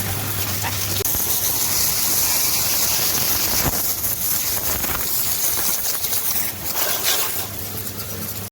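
High-pressure water spray hissing steadily over stripped motorcycle parts being washed, with a low motor hum about the first second and again near the end.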